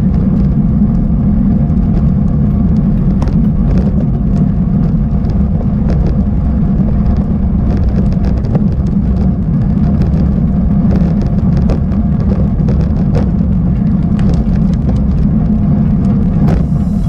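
Mountain bike riding over a rough, broken dirt track: a loud, steady low rumble of riding noise, with frequent sharp clicks and rattles from the bike over the rough surface.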